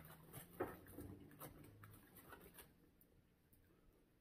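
Faint small clicks and rustles for about the first two and a half seconds, then near silence.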